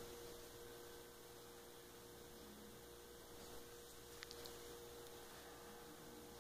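Near silence: room tone with a faint steady hum and a couple of faint ticks a little after four seconds.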